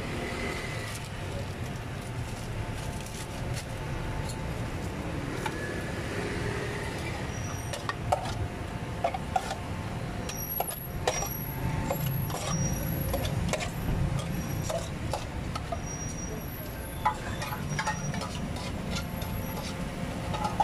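Busy street-stall ambience with a steady low hum of traffic and voices. From about eight seconds in, a run of sharp metallic clinks with a short ringing after some of them: a metal ladle striking a metal cooking pot.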